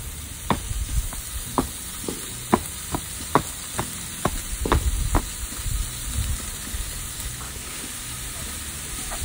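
Thin pork slices sizzling in a hot frying pan with no oil added. Sharp clicks of metal tongs against the pan come about a dozen times in the first five seconds as the pieces are spread out, then only the steady sizzle.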